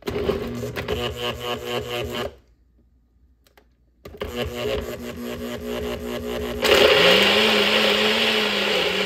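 NutriBullet personal blender running on a load of chunky fruit, its motor sound pulsing unevenly as the blade chops through. It stops for about two seconds, starts again, and about seven seconds in becomes louder and steadier as the mix turns to a smooth smoothie.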